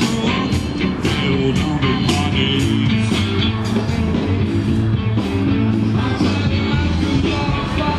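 Rock music with electric guitar, a steady drum beat and singing.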